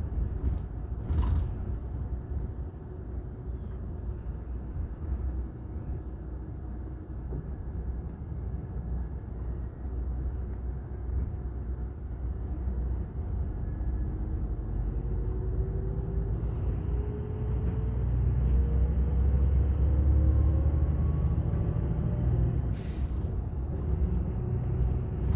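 Steady road and engine rumble of a moving road vehicle, heard from inside the cabin. It grows louder in the second half, where a faint whine rises slowly in pitch. There is a brief click near the end.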